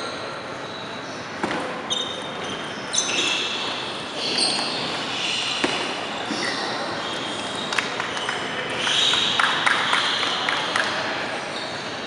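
Table tennis rally: the celluloid ball clicking off the paddles and the table at irregular intervals, with short high squeaks from shoes on the hardwood floor. A quicker run of light clicks comes near the end.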